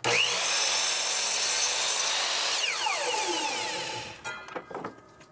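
Delta ShopMaster chop saw starting up and its blade cutting through the barrel of a wooden baseball bat. About two and a half seconds in the motor is let go and winds down in a falling whine, followed by a few light clicks.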